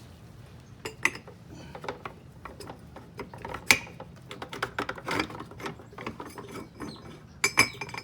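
Irregular sharp clicks and knocks of metal parts and hand tools being handled while a wrist pin and its seals are fitted to a Detroit Diesel 8V53 piston. The loudest knock comes about four seconds in, with a quick run of clicks near the end.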